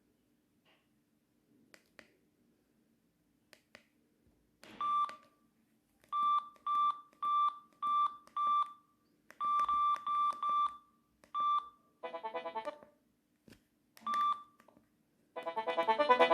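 Samsung SGH-X660 mobile phone's keypad beeps: about a dozen short beeps, all at one pitch, in quick runs, as its menu is stepped through. A brief burst of rapid notes comes in between, and near the end a polyphonic ringtone melody starts playing.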